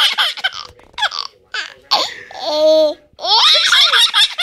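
Baby laughing in repeated short breathy bursts, belly laughs set off by her brother's sneezing, with one longer held squeal-like voice sound partway through.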